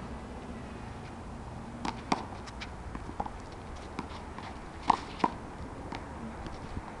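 Sharp smacks of a handball rally: a small rubber ball struck by hand and hitting the wall and court, with lighter scuffs and footsteps between. Two cracks come about two seconds in, and the two loudest come close together about five seconds in.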